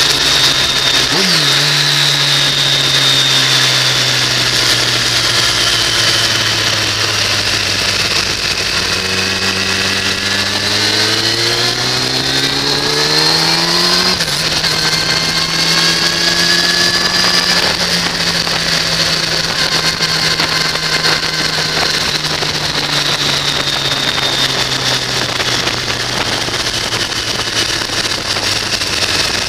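2006 Kawasaki ZX-10R's inline-four engine heard from a camera mounted on the bike: a brief rev about a second in, then the revs climbing steadily until a gear change drops the pitch about halfway through, and then slowly falling as the bike rolls off and slows. Wind rushes over the microphone throughout.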